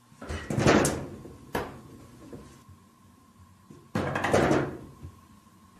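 Wood-framed glass sliding door rattling and knocking in its track as a cat paws at it: two longer rattles, one just after the start and one about four seconds in, with a short sharp knock between them.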